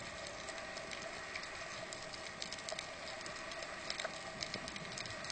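Underwater ambience picked up through a camera housing: a steady hiss scattered with faint, irregular crackling clicks.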